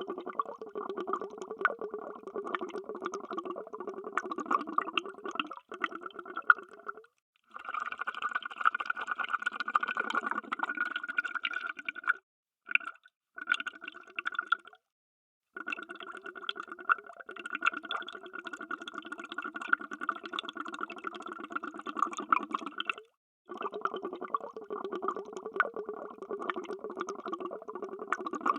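Underwater bubbles: a dense, continuous stream of bubbling and popping, stopping dead for several short moments, about six seconds in, around twelve to fifteen seconds in, and again about twenty-three seconds in.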